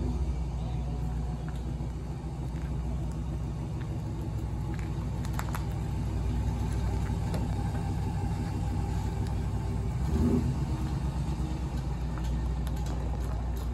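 2004 Ram 1500's 4.7-litre V8 running as the pickup is driven slowly, a steady low rumble that swells briefly about ten seconds in.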